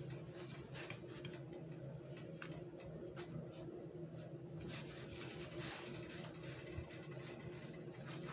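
Wooden rolling pin rolling out bread dough on a cloth-covered board: quiet, irregular rubbing and light scratching strokes, with a faint steady hum underneath.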